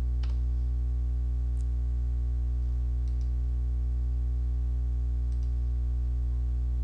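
Steady low electrical hum, with a few faint computer mouse clicks spaced through it, two in quick succession a little past five seconds in.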